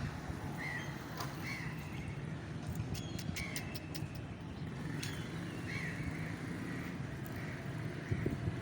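Outdoor street ambience: a steady low rumble of traffic with short high chirps repeating every second or so, and a few faint clicks.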